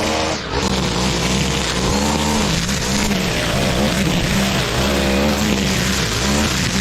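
Petrol lawn mower engine running under heavy load, its pitch repeatedly sagging and recovering as it cuts through thick, wet grass. There is a brief dip about half a second in.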